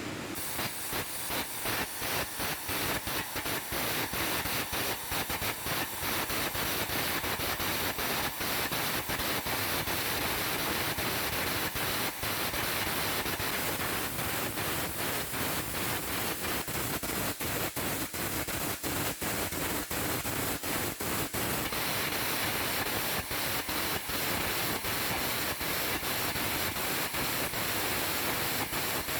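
Arc gouging: a gouging rod's arc burning a groove out of the back of a weld joint, a steady hiss and crackle broken by many brief sputtering drop-outs as the rod is weaved left and right.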